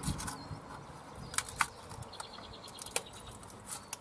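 A few sharp clicks and taps from a hand working at the rusty brake disc and its sheet-metal dust shield on a car's front wheel hub. A bird chirps a short quick trill in the background about two seconds in.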